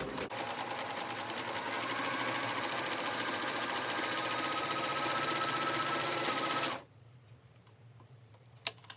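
Janome heavy-duty sewing machine stitching a hem: a fast, steady run of needle strokes over the motor's whine. It picks up a little about two seconds in and stops suddenly near the end, followed by a single click.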